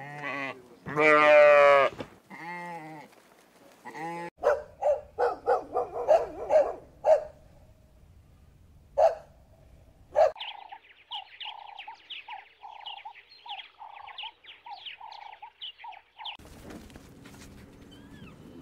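A lamb bleats loudly, with a wavering voice, about a second in, then more faintly. This is followed by a fast run of short animal calls, then a long series of quick, evenly repeated calls. Faint bird chirps come near the end.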